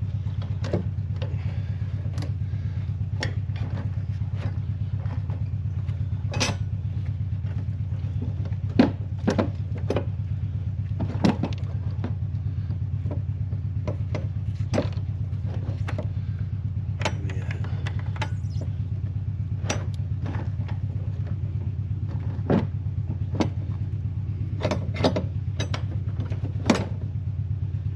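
A steady low machine hum with a fast, even pulse, with scattered sharp clicks and knocks of parts and tools being handled over it.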